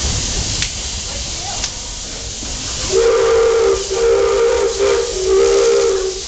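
Steam locomotive's whistle blowing a chord in several blasts, the last one longest, starting about three seconds in over the steady hiss and rumble of the running train.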